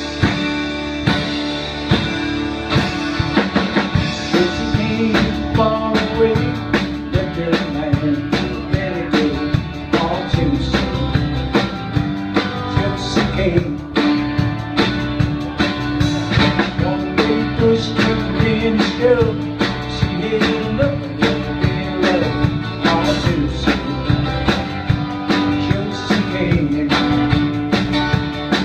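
Live band playing a song: electric and acoustic guitars, bass guitar and a drum kit keeping a steady beat, with a man singing lead.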